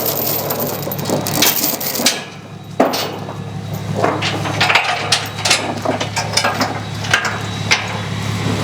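Irregular knocks, clanks and clicks of tie-down gear being worked on a trailer, over a steady low hum.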